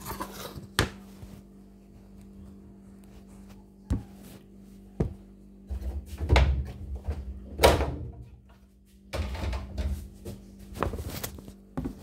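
Top cover of an LG washing machine being pried up and its plastic retaining clips worked off the edge: sharp clicks and knocks, with louder scraping and thudding in the middle.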